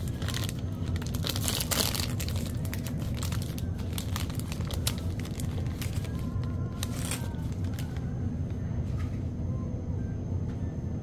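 Foil-lined plastic snack wrapper crinkling and tearing as it is pulled open by hand, in crackly bursts that are densest in the first two seconds and again about seven seconds in, over a steady low hum.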